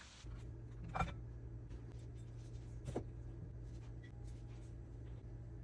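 A steady low hum with two short, sharp taps, one about a second in and one about three seconds in.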